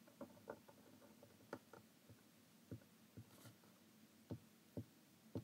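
Faint, scattered ticks and scratches of a fine-tip marker drawing on paper, about nine soft taps at irregular intervals.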